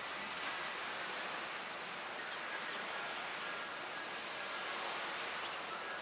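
Steady outdoor ambient hiss, with a few faint, short high tones over it.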